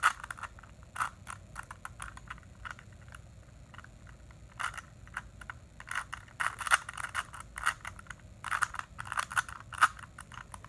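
A Rubik's cube being turned by hand: rapid runs of plastic clicks and rattles as its layers are twisted, in bursts separated by short pauses.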